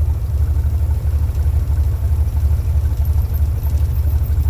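Small plane's engine running steadily: a loud, low, evenly pulsing drone.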